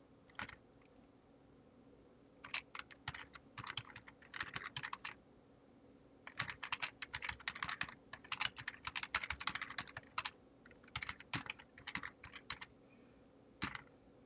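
Typing on a computer keyboard in three quick runs of keystrokes with short pauses between them, plus a lone click about half a second in and another near the end.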